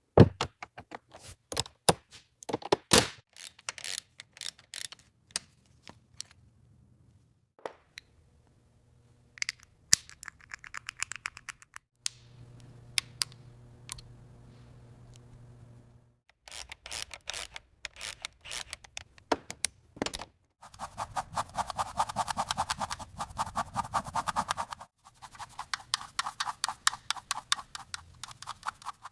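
Restoration tool work: a string of sharp clicks and taps, a steady low hum for a few seconds around the middle, then a fast, dense run of ticking and scraping near the end.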